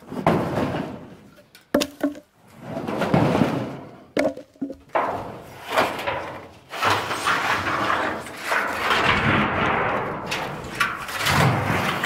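Sheets of metal roofing being dragged and lifted off a stack of lumber: rough scraping and rattling of sheet metal, with several sharp clanks, and a long continuous scrape through the second half.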